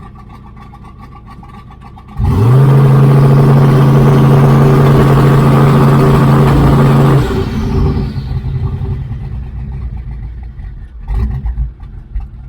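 The LTD Crown Victoria's engine idling. About two seconds in it is revved sharply up and held at one steady pitch for about five seconds, then let back down, with a hiss fading away as it settles.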